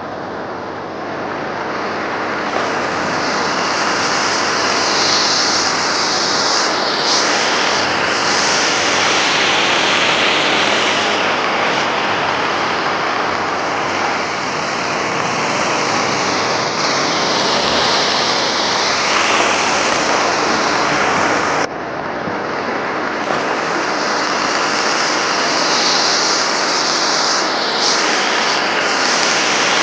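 Homemade hybrid rocket engine firing, with oxygen from a blowtorch line feeding the burning fuel: a loud, steady hissing rush of flame from the nozzle. It breaks off sharply about two-thirds through and then carries on.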